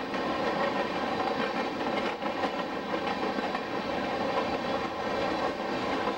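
Open-top coal hopper cars of a Union Pacific freight train rolling past in a steady rumble, steel wheels clicking over the rail joints.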